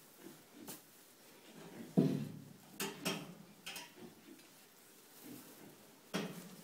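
Sow and newborn piglets shifting in straw bedding while nursing: a low thump about two seconds in, then a few sharp knocks and rustles.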